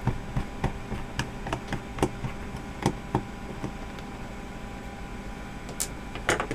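Small Phillips screwdriver unscrewing the screw in the plastic underside of a Logitech optical mouse: a run of small irregular clicks and ticks over the first three or four seconds. Near the end come two sharper clacks as the screw and screwdriver are set down on the table.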